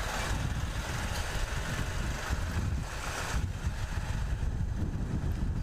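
Bajaj Pulsar 220 motorcycle engine running with a steady low rumble while wind rushes over the helmet-camera microphone. The wind hiss is heavier for the first three seconds or so, then eases.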